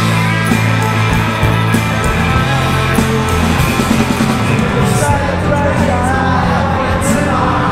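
A live rock band playing loud through the tent's sound system: electric guitars, bass guitar and drums with a singer, the bass notes steady under sharp drum hits.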